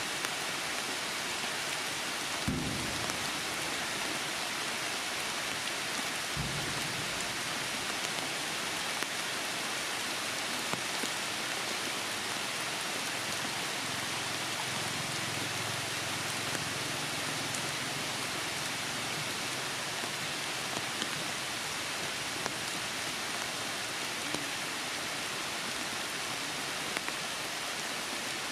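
Heavy rain falling steadily, with scattered louder drops hitting close by. A couple of brief low thumps come a few seconds in.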